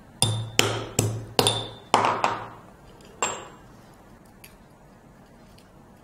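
Black cardamom seeds being lightly crushed with a pestle in a metal mortar: seven sharp strikes in the first three and a half seconds, each ringing briefly.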